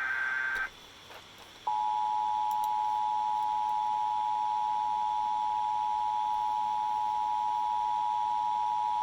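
Emergency Alert System broadcast: the tail of a SAME digital header data burst ends within the first second. About 1.7 s in, the EAS two-tone attention signal (853 and 960 Hz) starts and holds as a steady two-note tone, announcing a National Weather Service flash flood warning.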